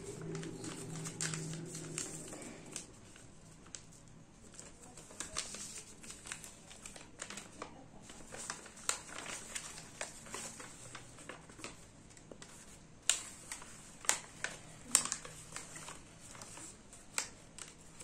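A sheet of origami paper crinkling and crackling as it is creased and folded by hand, in irregular crisp crackles, with a cluster of sharper, louder crackles about two-thirds of the way through.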